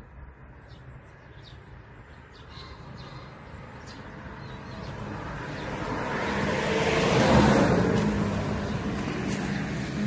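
A road vehicle passing by: its engine hum and tyre noise grow louder, peak about seven and a half seconds in, then begin to fade.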